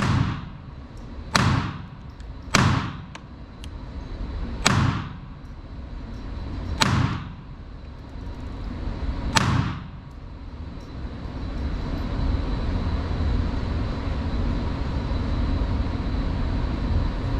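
Sig Sauer P322 .22LR pistol firing six single shots at an uneven pace over about ten seconds, each a sharp crack with a short ring-off. A steady background hum runs under the shots and continues after them.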